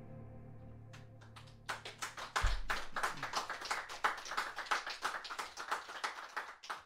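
The last sustained notes of the music die away, then a small audience breaks into applause, a few scattered claps growing into steady clapping about two seconds in. A single low thump comes about halfway through, and the clapping cuts off suddenly near the end.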